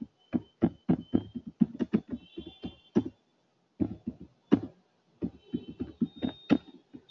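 Typing on a computer keyboard: single key clicks at an irregular pace of a few a second, with short pauses about three and a half and five seconds in.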